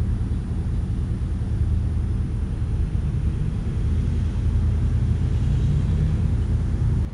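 Loud, steady low rumble with a faint hum in it.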